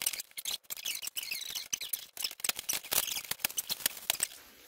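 Packing tape being slit and pulled off a cardboard shipping box with a small improvised blade, giving an irregular run of scratchy crackles and tearing, with the cardboard rustling.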